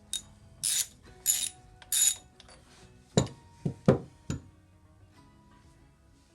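Socket ratchet clicking in four short bursts as bolts are worked loose on a motorcycle engine side cover, followed by four sharp metallic knocks a little after the middle.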